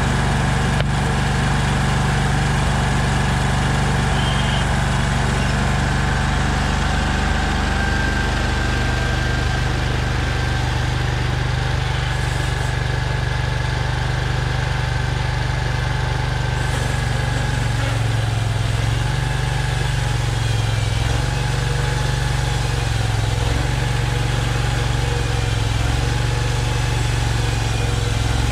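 Gasoline engine of a Hud-Son Oscar 336 portable bandsaw mill running steadily. In the second half, as the band saw is pushed through a log, the engine note wavers under load.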